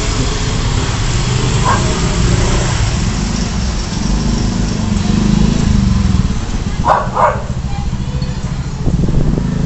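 Street traffic noise: motorcycle and car engines running as they pass slowly close by, with people's voices in the background. Two short, sharp sounds come close together about seven seconds in.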